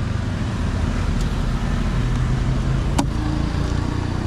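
Steady low mechanical rumble with a noisy background haze, and a single sharp click about three seconds in.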